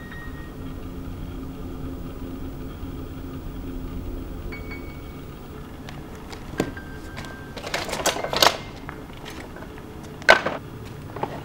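Tools and junk being rummaged through on a cluttered workbench: scattered clicks, then a burst of clinks and clatters about two-thirds of the way in, and one sharp knock near the end, over a low steady hum.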